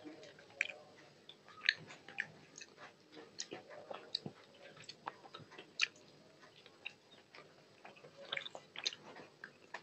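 Close-miked chewing of a mouthful of rice and curry eaten by hand, with many short wet mouth clicks and smacks, and fingers working the food on a steel plate.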